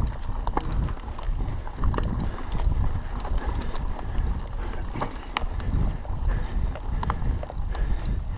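A mountain bike rolling over a dirt forest trail, with wind rumbling on the microphone. Frequent small clicks and rattles come from the bike and its tyres on the loose ground.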